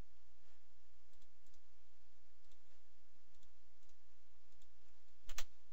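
Faint computer mouse clicks at scattered moments, then two louder clicks in quick succession about five seconds in, over a steady low hum.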